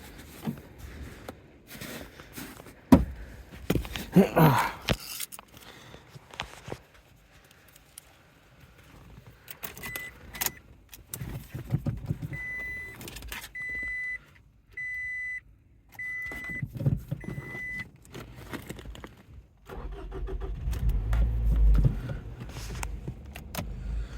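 Inside a Scion: keys jangling and clicking, then the car's warning chime beeping about six times at one steady high pitch, a second apart. Near the end a low rumble comes in as the engine cranks and starts.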